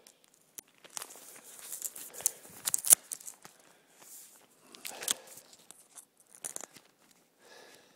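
Duct tape being peeled and torn off a phone close to the microphone: irregular crackling rips, the loudest about three seconds in, then a few shorter ones.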